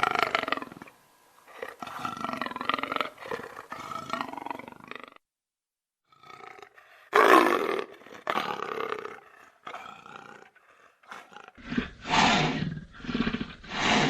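Leopard vocalizing in several bouts separated by short pauses, with a longer silent gap about five seconds in.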